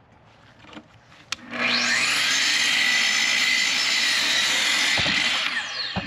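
Electric power saw cutting a 2x8 board: a click, then the motor whines up about a second and a half in, runs steadily through the cut, and winds down near the end.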